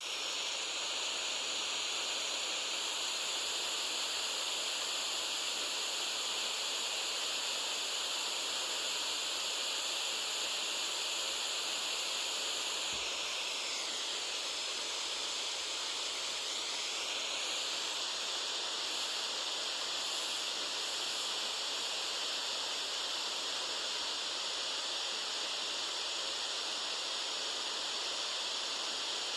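Steady, unbroken white-noise hiss played as a sleep aid, mostly high and hissy with almost no bass.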